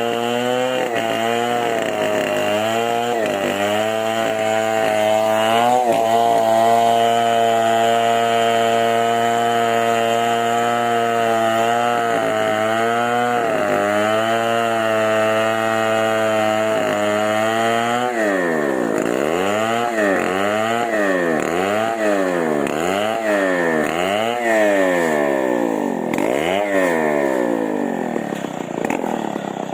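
Chainsaw engine running at a steady high speed with a few brief dips, then from about two-thirds of the way in revved up and down about once a second. The revving fades near the end.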